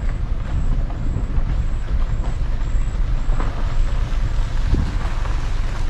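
Steady low rumble of a motor vehicle running and moving, with a few faint knocks.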